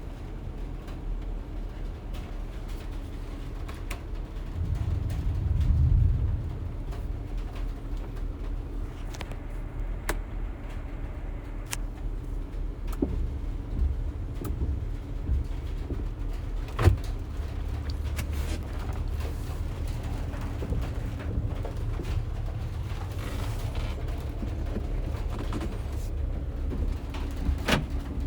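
A 2020 Ram ProMaster cargo van driving, with a steady low engine and road rumble that swells for a couple of seconds about five seconds in. Scattered creaks and rattles come from the van body, with a sharp click near the middle.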